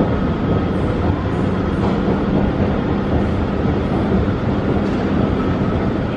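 Escalator running, a steady mechanical rumble with a faint steady hum, heard from on board while riding down.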